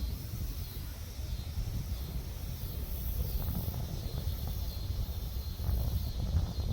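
Gusty wind buffeting the microphone as a low, uneven rumble, with faint high chirping repeating about once a second.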